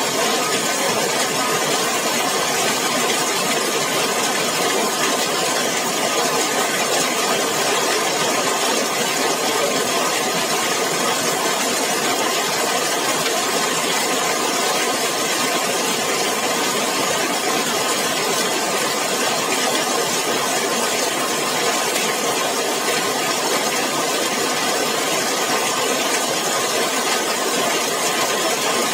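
Heavy rain falling steadily on a zinc sheet roof: a dense, unbroken patter with no let-up.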